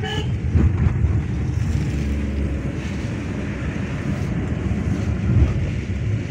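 Bus engine running with a low rumble and wind buffeting the microphone, swelling louder about half a second in and again near the end.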